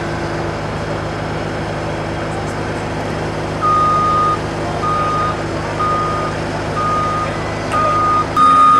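Diesel engine of a compact machine such as a skid steer running steadily, with its reversing alarm beeping about once a second from a little over a third of the way in. Near the end the engine note changes.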